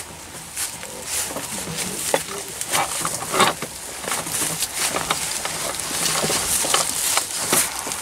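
Footsteps crunching and shuffling through dry leaf litter and twigs, with brush rustling against clothing, in a quick uneven series of crackles.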